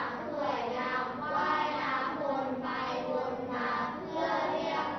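A class of schoolchildren reading a sentence aloud together in unison, as a steady chanted recitation in Thai.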